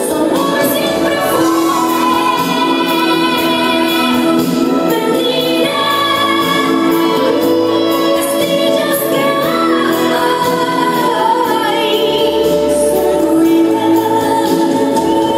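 A slow, dramatic song: a solo singing voice holding long notes over loud backing music.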